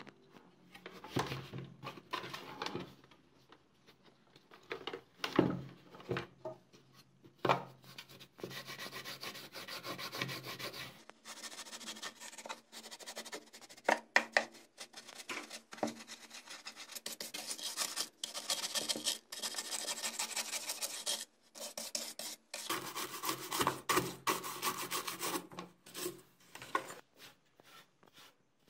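A paintbrush's bristles scrubbing caked dust off the motor base of an old electric juicer blender in quick, repeated strokes with a few short pauses. Before the scrubbing sets in, there are a few knocks and bumps as the base is handled on a wooden table.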